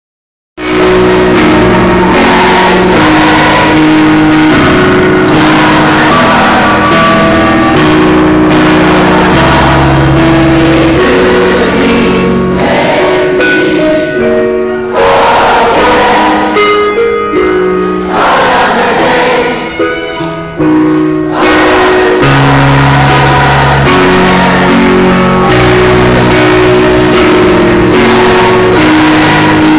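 Live rock ballad played loud at a concert, heard from inside the audience on a phone that is overloaded by the volume, with a large crowd singing along in chorus with the band. The sound thins briefly a couple of times in the middle, then comes back full.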